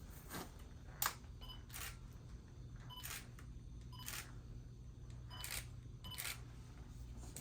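Digital camera taking a series of photos: about seven shutter clicks spread over several seconds, the loudest about a second in, with short high focus-confirmation beeps just before several of them.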